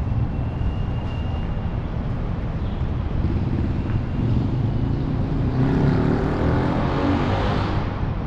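Steady city road traffic rumble, with one louder vehicle passing from about five and a half seconds in until near the end.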